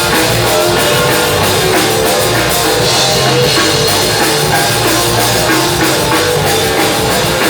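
Rock band playing an instrumental break between verses: drum kit and guitar over bass, with no singing.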